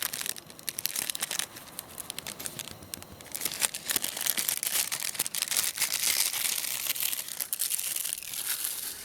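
Greaseproof paper crinkling and tearing as it is unwrapped from a small pocket knife, a dense crackle of many small sharp rustles in several louder stretches.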